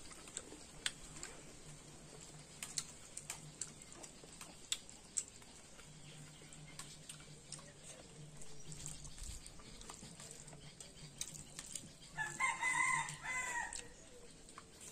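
A rooster crows once near the end, a call of about a second and a half. Sharp clicks and taps sound now and then before it.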